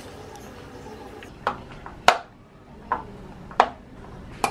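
Five sharp plastic clicks and knocks, spaced under a second apart, as a wall-mounted automatic toothpaste dispenser is handled and pressed with a toothbrush.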